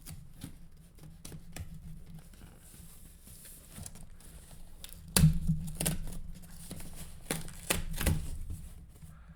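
A shipping package being opened by hand: packaging tearing and rustling, broken by sharp clicks and knocks, the loudest of them in the second half.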